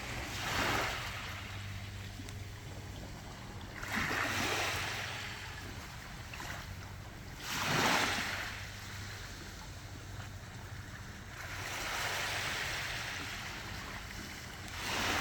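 Small waves breaking and washing up a sandy beach, surging about every four seconds over a steady low rumble.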